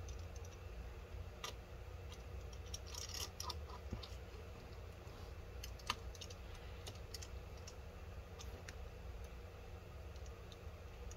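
Faint, scattered clicks and ticks of a small precision screwdriver turning tiny screws into the MacBook Pro's wireless antenna brackets, with one sharper click about six seconds in.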